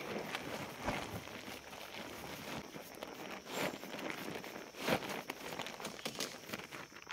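Footsteps and rustling as camping gear is packed up, with a few irregular knocks and thuds.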